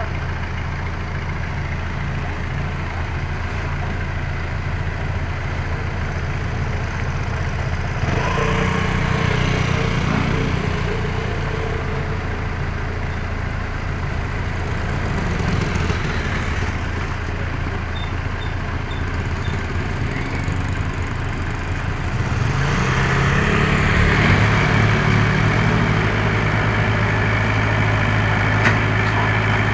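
Excavator's diesel engine running steadily, rising in level about a quarter of the way in and again near the last third, where its pitch shifts up and holds as the machine works under load.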